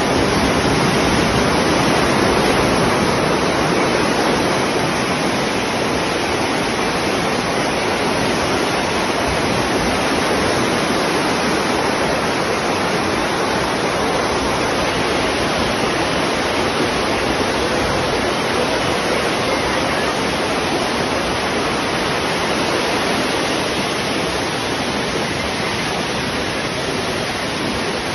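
Floodwater rushing in a swollen river: a loud, steady, unbroken sound of churning water.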